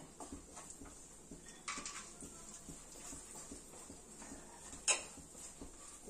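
Cashew and almond pieces being stirred while roasting in ghee in a pan: irregular light clicks and scrapes against the pan, with a sharper clink about five seconds in.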